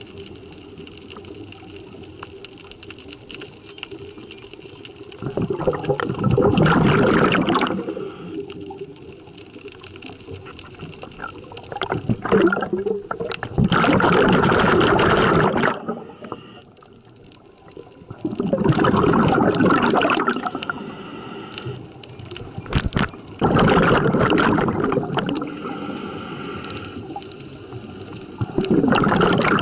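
Washing machine running with water inside: a low, steady wash of water broken by loud surges of water noise, each lasting two to three seconds and coming about every five seconds.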